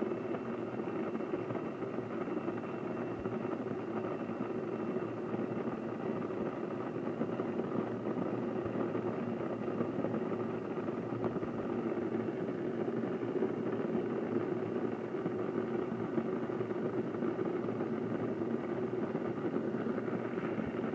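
Electric countertop blender running at a steady speed, puréeing cherries and ginger into juice.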